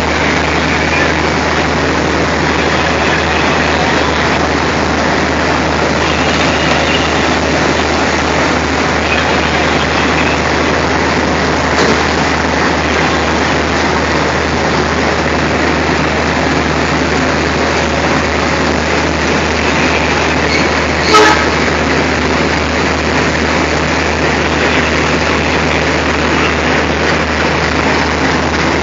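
Diesel locomotive engine running steadily, with a low steady hum under a constant rush of noise. One short sharp knock comes about three-quarters of the way through.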